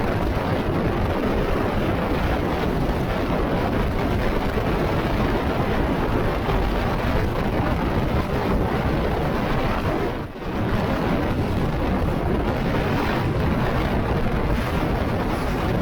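Very strong wind buffeting the microphone: a loud, continuous rush with a brief lull about ten seconds in.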